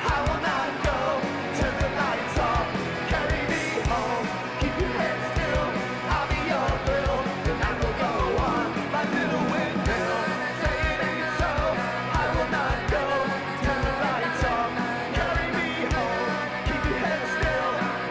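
Live rock band playing: electric guitars, bass and drums with a steady kick-drum beat, and a male lead singer singing over it.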